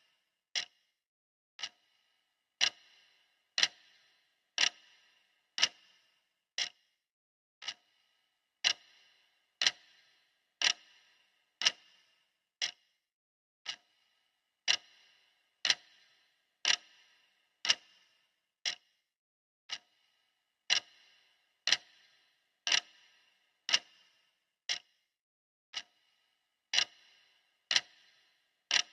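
Clock-style ticking of a countdown timer: one sharp tick a second, evenly spaced, some ticks a little quieter than others.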